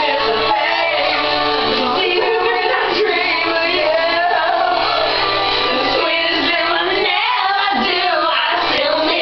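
Recorded rock song playing, with a lead singer's voice over the band.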